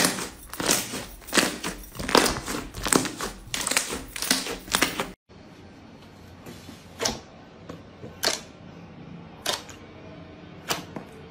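Thick white slime squeezed and kneaded by hand, giving a dense run of squishy crackles and pops. About five seconds in it cuts to a quieter stretch of single sharp pops, roughly one a second, as fingertips poke into orange slime.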